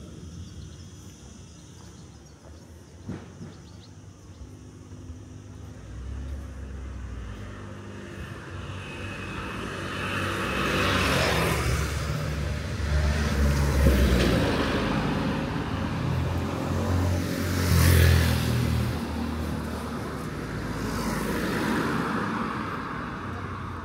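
Several motor vehicles driving past one after another, with engine hum and tyre noise. It swells from about six seconds in, comes in a few waves, and is loudest about three-quarters of the way through.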